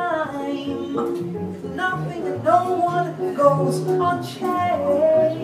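Live vocal jazz trio: a woman sings with a wavering, held voice into a microphone, over guitar and a bass line.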